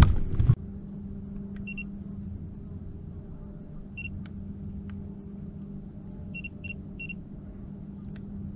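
Boat motor running steadily at trolling speed, a low even hum. Short high electronic beeps from the boat's electronics sound a few times, three in quick succession about six to seven seconds in, after a short knock right at the start.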